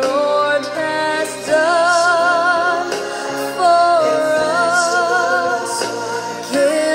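Background music: a slow song with a singer holding long notes with vibrato over instrumental accompaniment.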